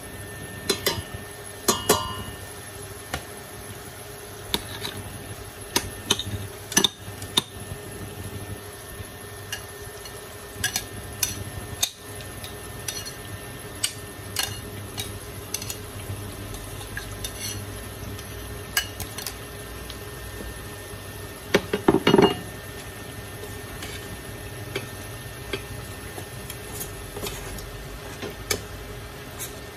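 Breaded pieces deep-frying in a stainless-steel pot of oil with a steady sizzle, while metal tongs click and clink against the pot and a steel mixing bowl. A quick clatter of several louder knocks comes about two-thirds of the way through.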